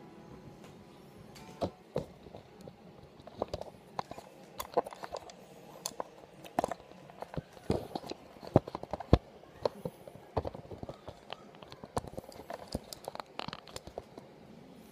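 Handling noise from a guitar and its leather strap being fitted: irregular clicks, taps and rubbing, with a few sharper knocks a little past the middle.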